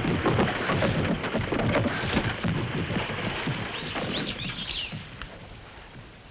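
A thunder-like crash effect with a noisy rumble that fades away over about four seconds. Then several birds chirp, starting about four seconds in.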